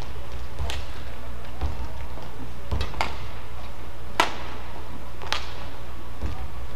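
Badminton rally: sharp cracks of racket strings striking a shuttlecock, roughly one every second or so, the loudest about four seconds in, with low thuds of players' footwork on the court.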